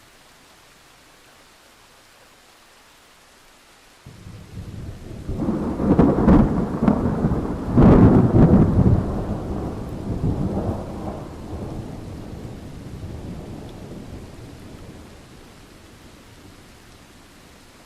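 A thunder peal over steady rain hiss. The rumble starts suddenly about four seconds in and swells to two loud cracks. It then rolls away slowly over several seconds, leaving the hiss of the rain.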